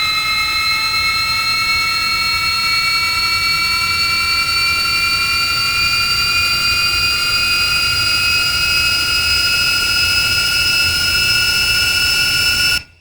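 Cinematic whine effect: several high, steady tones slowly rise in pitch together over a low rumble, like a jet turbine spooling up. It cuts off suddenly near the end.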